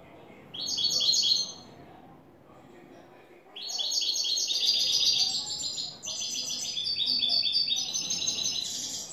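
European goldfinch singing: a short burst of fast twittering notes about half a second in. Then, after a pause, a long run of rapid repeated trilled phrases that lasts to the end, broken briefly about six seconds in.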